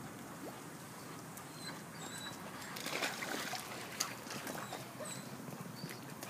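Dogs whining softly in short high whimpers, with faint scuffs and clicks of paws on a wet concrete pool deck.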